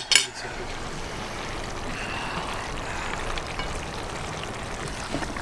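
Steady rushing background noise, like running water, with a brief sharp click right at the start.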